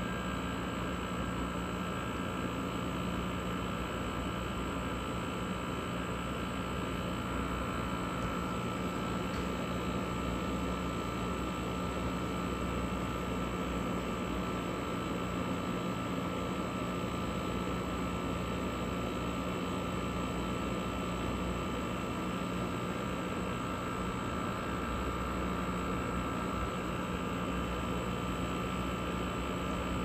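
A 1960s–70s GE Thinline air conditioner running steadily, heard at its outdoor grille. Its condenser fan blows air over a constant hum.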